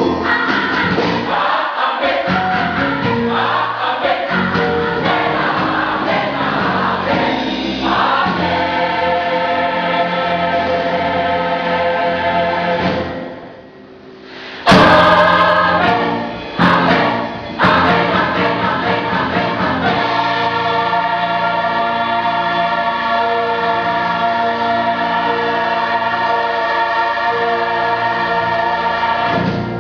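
Mixed gospel choir singing in full harmony. About halfway through the sound drops almost to nothing, then the choir comes back in loud and sudden with two short clipped stops, and ends on a long held final chord.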